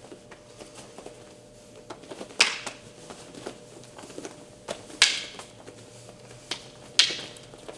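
Rattan eskrima sticks clacking together in a stick-fighting drill: light taps and knocks throughout, with three loud, sharp cracks about two and a half, five and seven seconds in.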